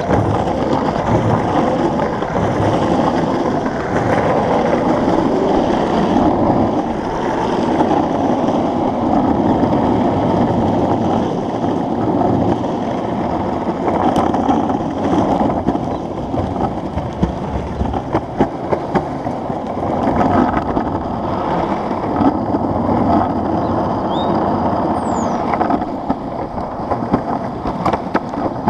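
Longboard wheels rolling over rough asphalt: a steady rumble, with a run of sharp clicks and knocks near the end.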